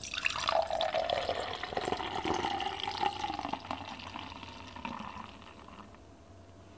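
Beer being poured into a glass: a stream of liquid splashing and filling the glass, fading out after about five seconds.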